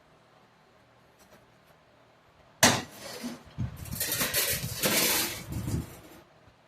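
Metal transmission parts being handled on a workbench: a sharp clank about two and a half seconds in, then a few seconds of clinking and rattling.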